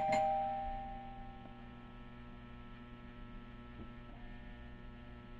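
A two-tone doorbell chime's last note ringing out and fading over about a second and a half, then a steady electrical hum. The bell is being rung over and over by someone at the door.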